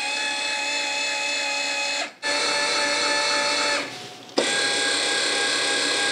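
Small electric actuator motor on a fly-by-wire boat-control test rig whining steadily as it drives a gear-shift control electronically. It runs in three spells, stopping briefly about two seconds in and again around four seconds, then stops near the end.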